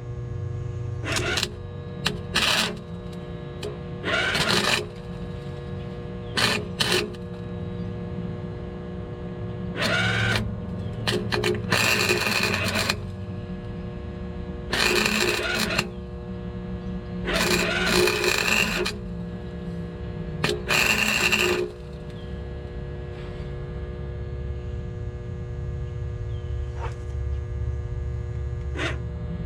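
Arc welding on an exhaust pipe in short crackling bursts, about ten of them of differing length, with a steady hum between: stitch-welding shut a hole blown through the pipe. The bursts stop about two-thirds of the way through, leaving the steady hum.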